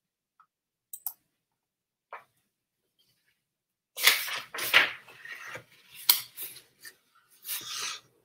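Pages of a large hardcover picture book being turned and handled: a few faint clicks, then from about halfway a run of paper rustles and flaps.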